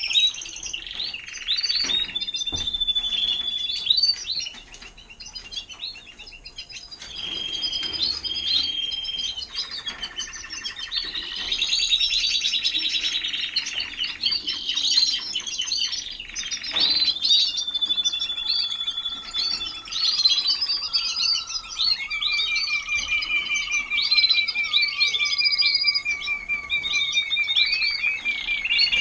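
Timbrado español canaries singing: a continuous run of chirps, rolling trills and long held whistled notes, with a fast, even trill held on one pitch through the last several seconds.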